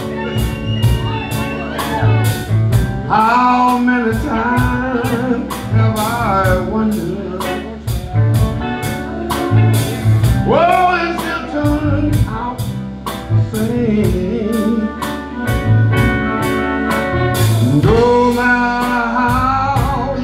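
Live blues band playing an instrumental break in a slow blues ballad: an amplified harmonica, cupped against a microphone, wails and bends its notes over electric guitar, electric bass and a drum kit keeping a steady beat.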